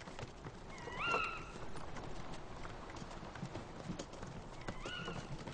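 A horse's hooves clip-clopping faintly, as of a horse-drawn cart, with two short rising squeaks, one about a second in and one near the end.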